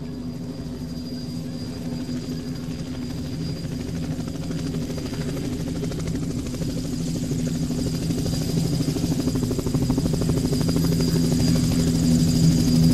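Helicopter rotor sound effect, growing steadily louder as it approaches.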